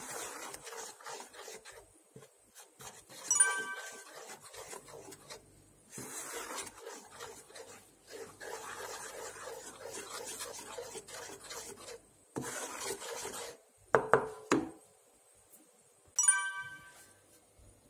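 Wooden spatula scraping and stirring thick red pepper paste in a saucepan, in rasping strokes with short pauses. Two short ringing clinks, about three seconds in and near the end, and a couple of knocks around two-thirds of the way through.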